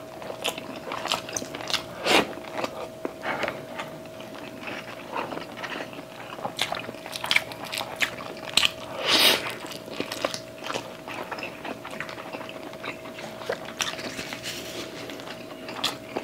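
Close-miked mouth sounds of people eating chicken adobo with their hands: chewing, biting and wet lip smacks, with a few louder smacks along the way. A faint steady hum runs underneath.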